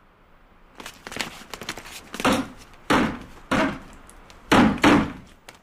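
Heavy blows on a thick wooden door being battered down: a run of knocking and splintering clatter, with about five loud thuds.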